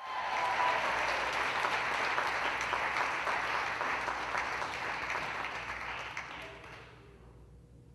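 Audience applauding, dense clapping that dies away about seven seconds in.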